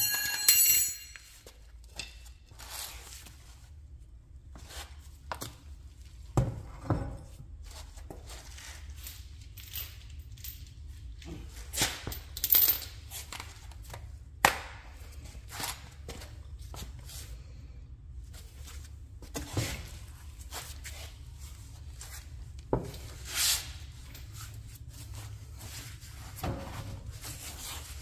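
Irregular knocks, clinks and short scrapes of hand tools and metal parts being handled and set down, over a steady low hum.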